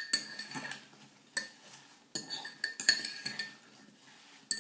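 Metal fork stirring chopped apple in a ceramic bowl, clinking against the bowl's side in a few separate bouts: one right at the start, one about a second and a half in, a longer run from about two to three seconds, and another near the end. The louder clinks leave a brief ring from the bowl.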